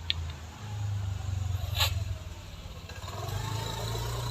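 A motor vehicle engine running close by, a steady low hum, with one sharp click a little under two seconds in.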